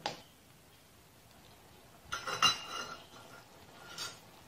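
Steel spoon clinking and scraping against a pan while stirring a simmering onion-tomato masala: a click at the start, a quick run of clinks a little after two seconds, and one more near the end.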